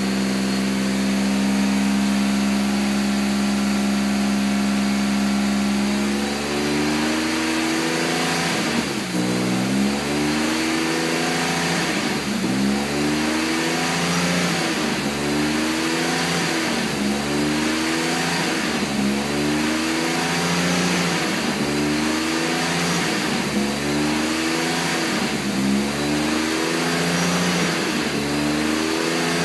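BMW M50 straight-six stroker engine idling, steady at first; from about six seconds in its speed rises and falls regularly, about once every two seconds. This is the hunting, rough idle of this engine.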